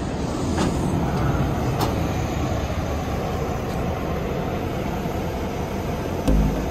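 Steady engine rumble of airport ramp traffic. Background music with a regular beat comes in near the end.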